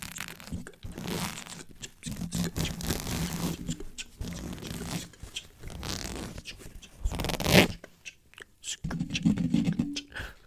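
Close-miked ASMR dry mouth sounds, quick lip and tongue clicks and smacks, layered over brushing and scratching on the microphone. The strokes come in irregular runs, with one louder burst about seven and a half seconds in.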